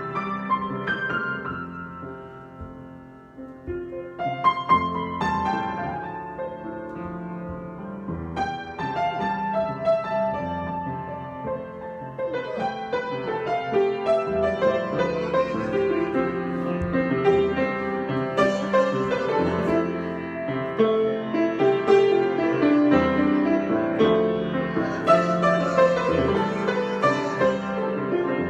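Solo piano improvisation: a few struck chords left to ring at first, then busier, louder playing from about twelve seconds in.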